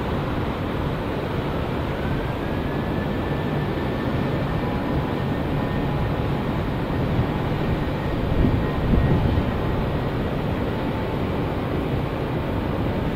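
Airliner's jet engines running, a steady noise with a faint high whine that rises slightly about two seconds in and then holds. A few low bumps come around eight to nine seconds in.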